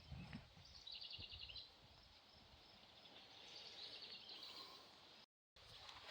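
Near silence: faint background hiss, with a distant bird trilling briefly about a second in.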